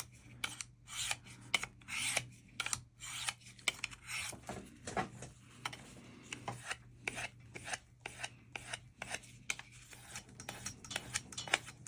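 An S90V steel knife blade scraped in quick strokes across a Work Sharp Field Sharpener, a dry rasping scrape with each stroke, about two or three strokes a second.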